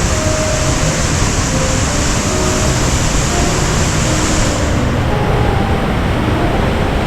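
Large waterfall in heavy flood flow after days of rain, a loud, steady roar of falling water; the highest part of the hiss drops away about two-thirds of the way through.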